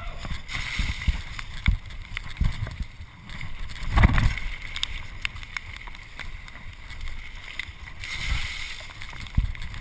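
Mountain bike descending a rough, wet forest trail: wind buffeting the microphone, tyres rumbling over gravel and the bike rattling with many small knocks. A heavy thump about four seconds in is the loudest moment.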